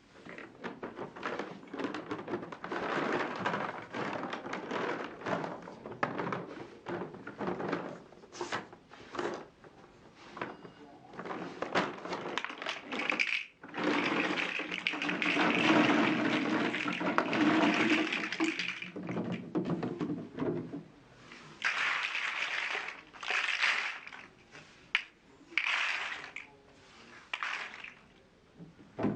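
Marbles rolling and clattering down a wooden marble run, with many small clicks and knocks as they run along the tracks and drop between pieces. The rolling is thickest about halfway through, then comes in separate short runs near the end.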